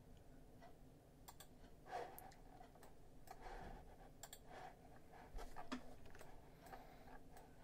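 Faint, scattered clicks of a computer mouse, a few spread irregularly over several seconds, against near-silent room tone.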